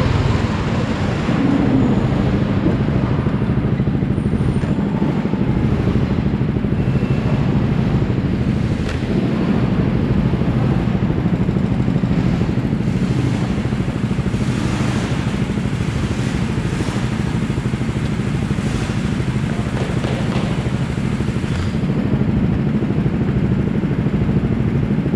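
Go-kart engine running steadily, heard from on board the kart, with a steady low drone and no big swings in revs.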